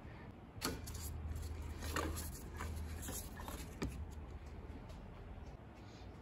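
A rubber serpentine drive belt being pulled out by hand, with several soft knocks and scrapes as it rubs against the pulleys and engine parts.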